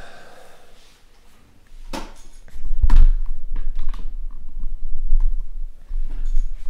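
Handling noise at a desk: scattered clicks and knocks starting about two seconds in, with heavy low thuds carried into the microphone.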